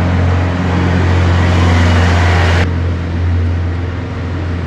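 A steady low motor hum with a loud hiss over it; the hiss cuts off abruptly about two and a half seconds in while the hum runs on.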